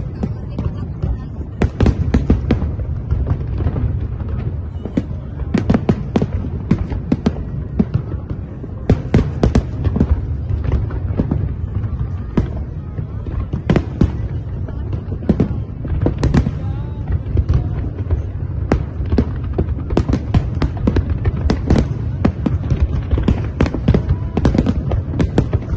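Aerial fireworks bursting in rapid, irregular succession: many sharp bangs over a continuous low rumble.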